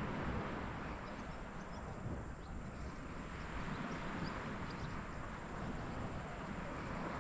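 Steady wind rumble on the microphone, with a few faint high ticks scattered through it.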